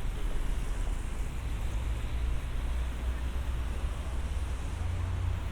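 Steady city street noise: a continuous low rumble of traffic under an even background haze.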